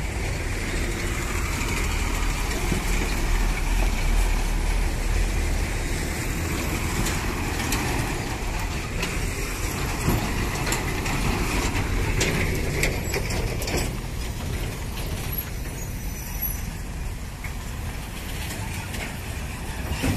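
Heavy loaded diesel trucks driving past on a dusty dirt road: steady low engine rumble with tyre noise, and scattered clicks and rattles in the middle.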